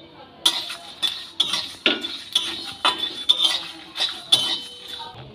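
A spatula scraping and knocking against a dry metal kadai about twice a second, stirring coriander seeds, panch phoron and dried red chillies as they dry-roast.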